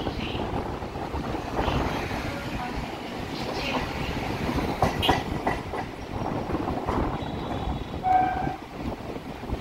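MMTS suburban electric train running on the rails, with a steady rumble and wheel clatter. A couple of sharp knocks come about five seconds in, and a short pitched tone sounds about eight seconds in.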